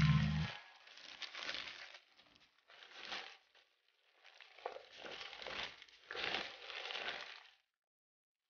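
Gloved hands tossing cut chives with chili seasoning in a bowl: about five bursts of crisp rustling and crinkling, one mixing stroke after another. The chives are being mixed gently. A low drone stops about half a second in.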